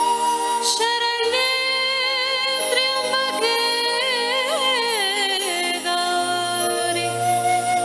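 A woman singing a Hindu devotional song to Shiva through a microphone and PA, holding long notes, with a wavering ornamented run in the middle and a long steady note near the end.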